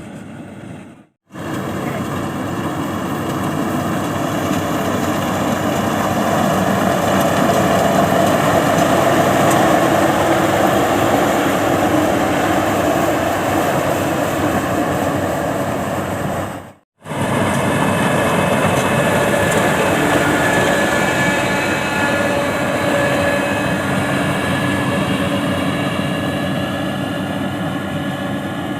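Engine of rice-harvesting farm machinery running steadily, cutting out abruptly twice for a moment, about a second in and about seventeen seconds in.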